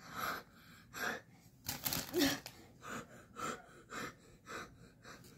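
A child huffing and gasping rapidly through an open mouth, about two sharp breaths a second, with a brief pitched cry a little past two seconds in: panting against the burn of spicy Flamin' Hot Cheetos.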